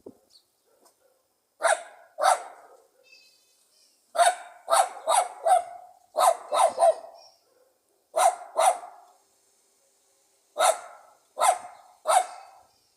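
Pug dog barking: about a dozen short, sharp barks in bursts of two to four, with pauses of a second or two between the bursts.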